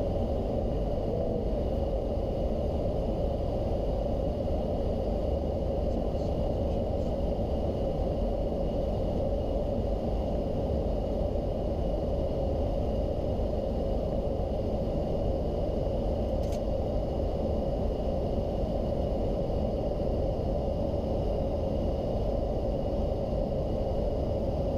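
Steady flight-deck noise of a Boeing 737-800 on final approach: an even low rush of airflow and engine and air-conditioning noise with a steady hum and a faint high whine. One faint click about two-thirds of the way through.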